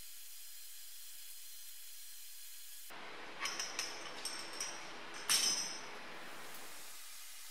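Metal hand tools clinking and clattering, several sharp clicks with the loudest a little past halfway, over a steady faint hiss.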